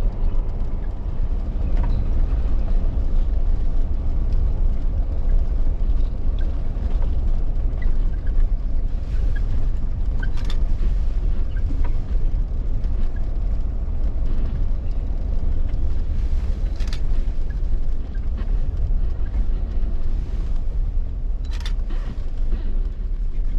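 Jeep engine and tyre rumble heard from inside the cab while driving slowly on a dirt road, steady and low, with a few short clicks or knocks.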